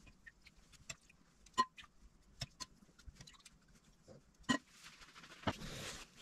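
Scattered soft taps and wet slaps as whole brined rainbow trout are set down one by one on paper towels, then paper towel rustling from about five seconds in as the fish are patted dry.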